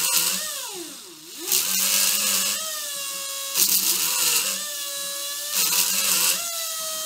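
Power checkering machine running, its drive whining steadily, with a gritty hiss each time the spinning cutter wheel is drawn along a line in the wood: three cutting passes of about a second each, the whine settling between them. The whine dips in pitch and recovers about a second in. These are test lines cut in scrap wood for setting the lines-per-inch spacing.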